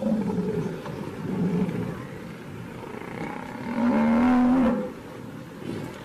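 Lion growling: several short growls, then the loudest, a call about a second long, about four seconds in.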